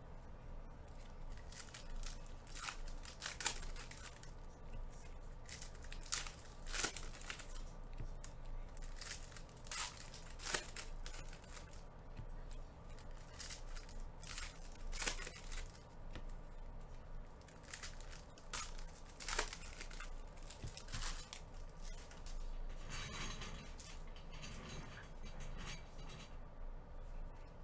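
Foil trading-card pack wrappers being torn open and crinkled, with irregular sharp crackles and a denser stretch of crinkling near the end.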